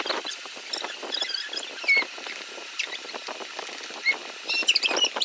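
Plastic bottles of white glue being squeezed, the glue squirting out with quick squelchy clicks and short high squeaks, a denser flurry near the end.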